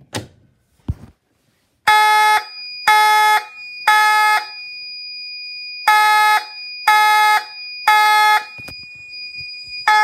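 Fire alarm horn sounding the temporal code 3 pattern: three half-second blasts about a second apart, a pause, three more, and the next set starting at the end. A couple of clicks come first as the pull station is worked, and a faint steady high whine carries on between the blasts.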